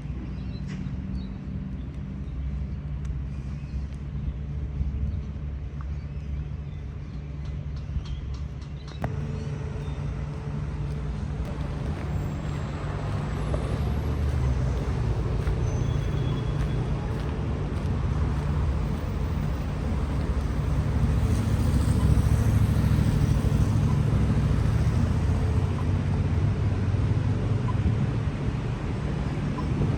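City road traffic: vehicle engines running with a steady low rumble. It grows louder about a third of the way in and is loudest a little past the middle.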